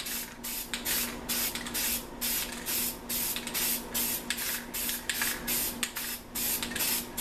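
Aerosol spray paint can sprayed in rapid short bursts, two or three a second.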